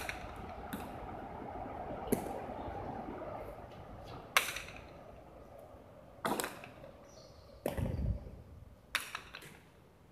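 Jai alai pelota striking the fronton's walls and floor and the players' wicker cestas: a series of sharp cracks a second or two apart, the loudest about four seconds in, several of them echoing briefly off the walls.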